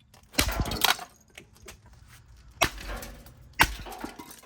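Four hard blows smashing the casing of a gutted Hamilton Beach microwave, each a sharp crash with a brief crunch of breaking parts: two close together about half a second in, then single blows about a second apart near the end.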